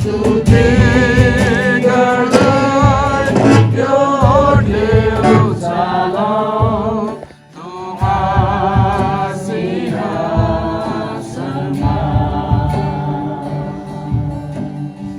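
Christian worship song sung by a group of voices with instrumental backing and a steady beat, the music dropping out briefly about seven seconds in.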